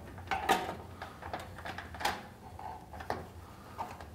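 Knocks and clicks of the fountain's header cover being handled and seated onto the top bar of its stainless frame: a handful of irregular sharp knocks, the strongest about half a second and about two seconds in.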